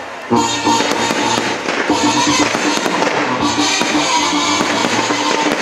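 Aerial firework shells bursting and crackling overhead, with music playing at the same time.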